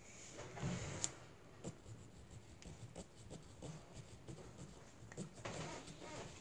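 Faint scratching and rubbing of a felt-tip marker being worked over a plastic water bottle, with light clicks as the bottle and marker are handled, a sharper click about a second in.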